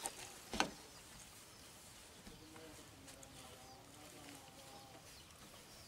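Quiet outdoor background with a brief sharp sound just after the start, then a faint distant bird call in the middle.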